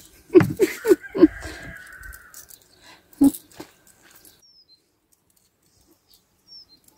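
A quick run of four short, harsh animal calls, then a single call about three seconds in. Near the end, faint high chirps of small birds, each a short falling whistle.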